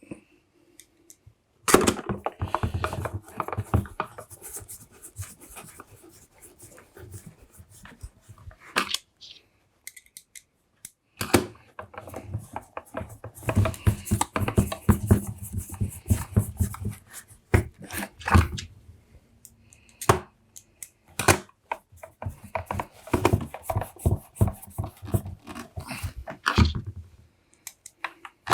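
Plastic casing of a Makita DVC260 cordless vacuum being handled and screwed back together: irregular clicks, knocks and rattles in busy clusters with short pauses between.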